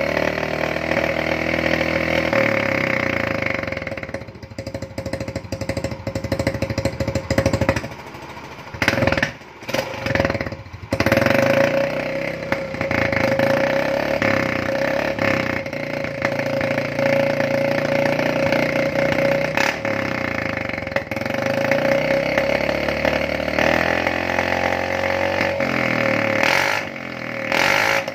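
Motor scooter's single-cylinder engine running through an aftermarket exhaust re-packed for a loud 'MP7 drag' tone, revved in throttle blips that rise and fall, with a few sharp louder revs around nine to eleven seconds in.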